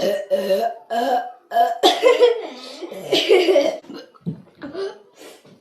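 A girl burping several times in a row, loud drawn-out belches following one another with short breaks between them.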